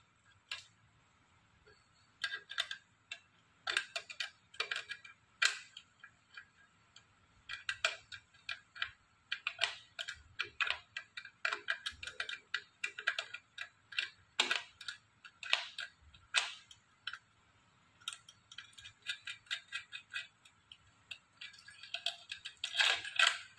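A 10 mm open-end wrench clicking and tapping against a nut on an electric scooter's front drum-brake arm as it is worked loose. The clicks come in quick irregular runs, with short pauses.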